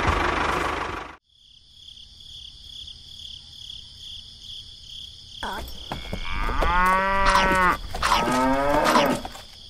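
A cow mooing twice, each moo lasting about two seconds, over a steady high insect chirring. In the first second a small motor runs and then cuts off suddenly.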